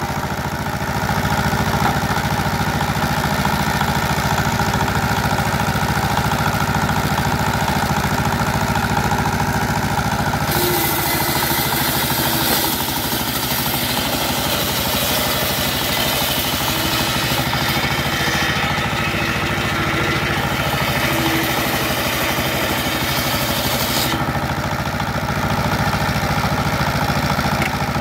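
Single-cylinder stationary diesel engine running steadily, driving a table circular saw. From about a third of the way in until near the end, the blade cutting through a sonokeling rosewood plank adds a high hissing noise over the engine.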